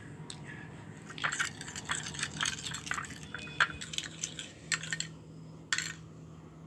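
Small irregular clicks and scrapes of a spoon, bowl and glass jar being handled on a tabletop, over a faint steady low hum.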